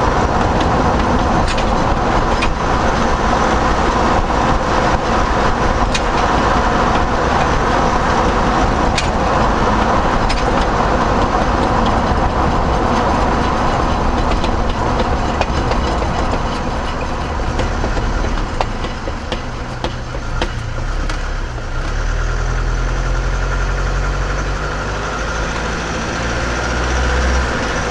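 Car on the move with steady road and tyre noise and a few scattered sharp clicks. Past the halfway point the road noise fades and a steady low engine hum takes over.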